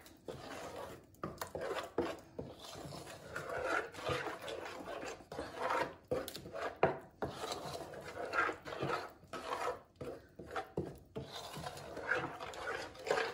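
Wooden spoon stirring a thick yogurt marinade, scraping and rubbing against the pan in repeated, uneven strokes.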